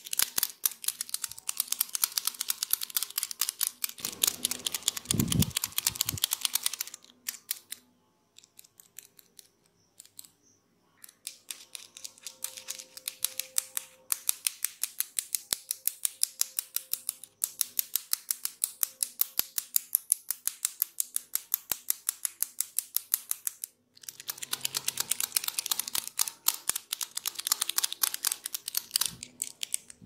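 Small metal massage tools, a pin and a pen, clicked and tapped together close to the microphone: fast, dry metallic clicking, several clicks a second, in runs broken by short pauses.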